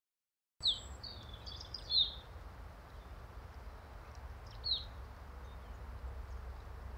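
Small woodland birds giving a few short, high, down-slurred chirps, the loudest about two seconds in, over a low steady outdoor rumble. The sound cuts in abruptly about half a second in, after silence.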